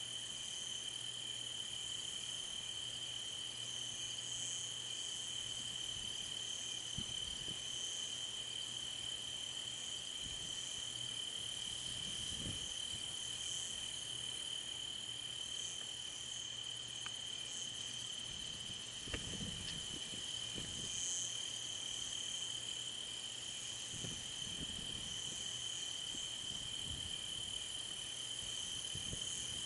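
Crickets trilling in one unbroken high tone, with a higher insect call swelling now and then above it. A few faint low rumbles come and go underneath.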